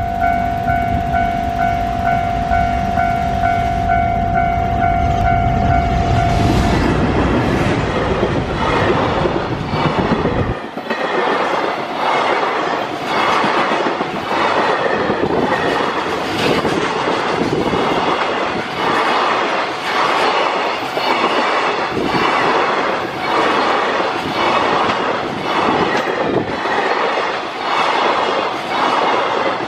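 EF510 electric locomotive sounding one long horn blast for about six seconds as it approaches, then passing with a heavy low rumble. From about ten seconds in, the container wagons of the freight train roll past with a steady, rhythmic clickety-clack of wheels over the rail joints.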